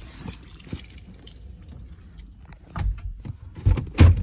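Keys jingling lightly, then three dull thumps near the end, the last the loudest.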